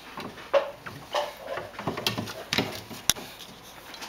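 Light knocks and clicks of toy kitchen pieces being handled and its doors opened and shut, half a dozen scattered through, with a sharp click about three seconds in.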